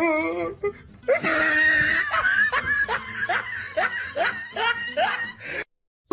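A man laughing hard in a run of short, rising whoops, about two or three a second, after a brief wavering vocal note at the start. The laughter cuts off suddenly into silence near the end.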